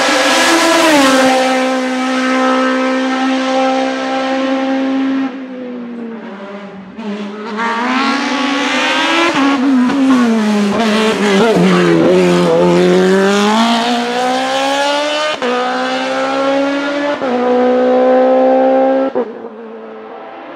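Suzuki Hayabusa inline-four motorcycle engine in a Gloria C8P Evo hillclimb prototype at high revs. The note drops as the car slows for a bend and sags through the corner, then climbs hard again with quick upshifts, each one a sharp break in the pitch. The sound falls away suddenly near the end.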